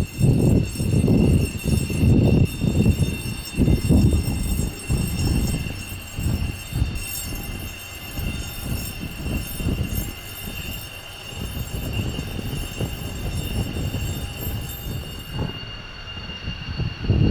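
F-16 fighter jet engine noise: a loud, rough rumble that surges and dips for the first few seconds, then gradually fades as the jet moves away, with a steady high whine throughout.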